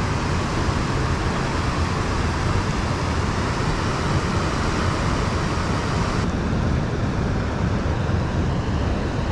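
Steady rushing of fast river water mixed with wind buffeting the microphone. The higher hiss drops away about six seconds in.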